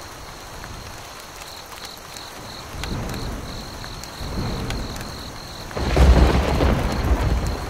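Thunderstorm: steady rain with low thunder rumbles swelling twice, then a loud thunderclap just before six seconds in that rumbles on.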